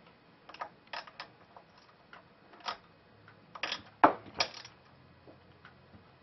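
Scattered light clicks and knocks of small hedge trimmer parts being handled during reassembly, about seven in all, the loudest about four seconds in.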